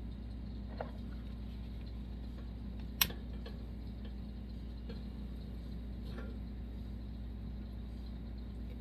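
One sharp click about three seconds in and a few fainter taps, over a steady low hum.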